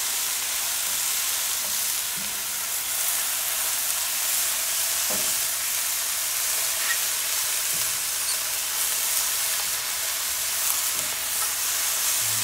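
Sliced mushrooms, onions and red bell pepper sizzling steadily in a hot nonstick skillet while a spatula stirs them.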